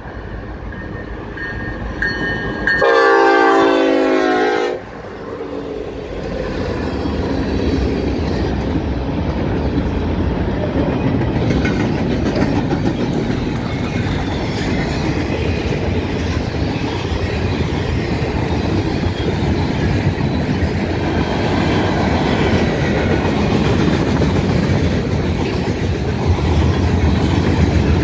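Norfolk Southern diesel freight train passing close by. The locomotives sound a loud air horn for about two seconds, about three seconds in. Then the engines rumble past and a long string of freight cars rolls by with steady clickety-clack of the wheels on the rails.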